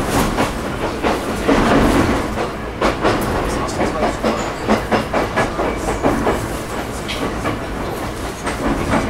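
Interior running sound of a JR East E127 series electric train car (KuMoHa E127-105): wheels knocking and clacking over the rails under a steady rumble, with the car's air conditioning running.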